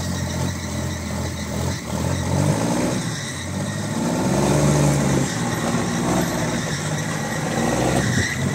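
M35A2 6x6 army cargo truck's engine revving under load as the truck, piled with sugar cane, strains up a steep slope; the pitch climbs and falls back twice, loudest about halfway through.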